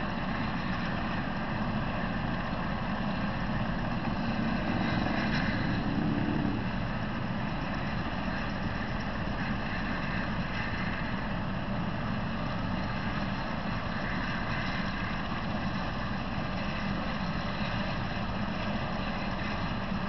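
Steady engine noise of idling vehicles with a low hum, a little louder for a couple of seconds about five seconds in.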